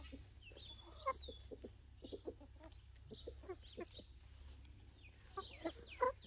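Hens clucking in short, scattered calls.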